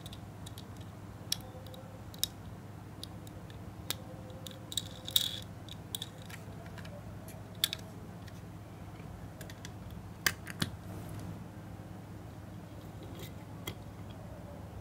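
Scattered small clicks and taps of diecast toy cars and a toy truck being handled and set down on a cutting mat, the sharpest about 5 s and 10 s in, over a steady low hum.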